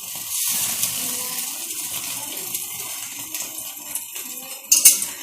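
Butter-basted whole chicken sizzling and crackling on a griller over an open gas flame, with a sharp pop near the end.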